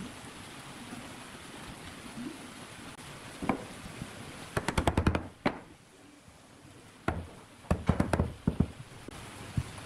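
Pine slats being knocked down into glued mortises in a pine rail: sharp wooden knocks, with a rapid flurry of about eight about halfway through and another quick cluster a couple of seconds later.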